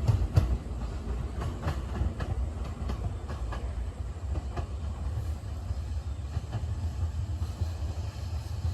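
JR Kyushu 787-series electric train running along the track: a steady low rumble with the wheels clicking over rail joints.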